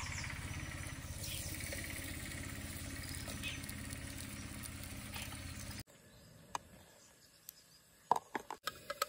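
A steady low drone like a small engine running, cut off sharply about six seconds in. A few light clinks of a spoon against a steel pot follow.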